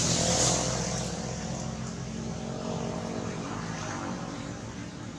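A motor engine running steadily and fading away, as from a vehicle passing at a distance.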